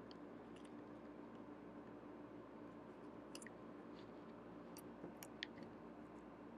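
Near silence: faint steady room hum with a few small, sharp clicks and ticks of paper cut-outs being handled and pressed down by hand.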